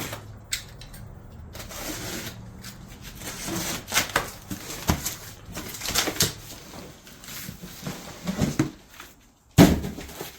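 Cardboard packaging being opened and handled: scraping, rustling and scattered knocks, with one loud knock near the end.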